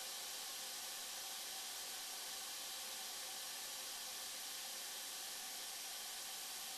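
Steady, even hiss at a low level, unchanging throughout.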